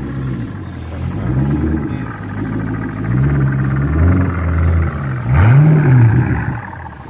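A car engine revving: its pitch rises and falls several times, the biggest rev about five and a half seconds in.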